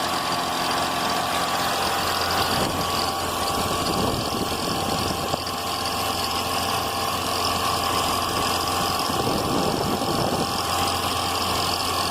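Car engine idling with a steady, high cicada-like chirp from the accessory belt drive at the front of the engine. The owner puts it down to a worn belt, a failing alternator bearing or a plastic part rubbing the belt.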